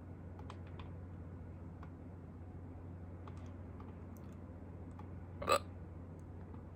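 A person hiccuping once, a short sharp hiccup about five and a half seconds in, over a steady low hum.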